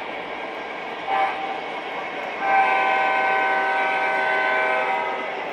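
Sound-equipped O gauge model locomotive sounding a short blast and then a long blast of its signal, over the steady running noise of the train on the track.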